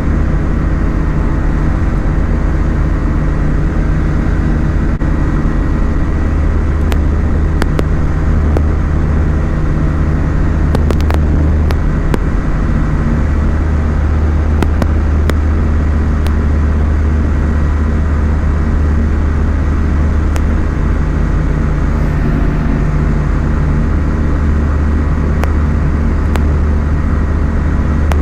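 Engine and propeller of a small light aeroplane running steadily, a loud, even low drone.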